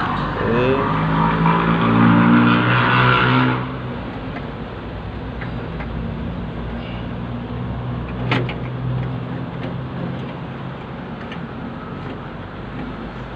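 A motor vehicle engine accelerating, its pitch rising, under a loud rush of noise that cuts off abruptly about three and a half seconds in. A steady low machine hum and a few faint ticks remain.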